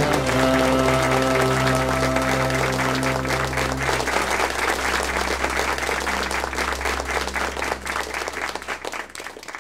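Audience applause over the held final chord of a song, the clapping thick and continuous. Both fade toward the end.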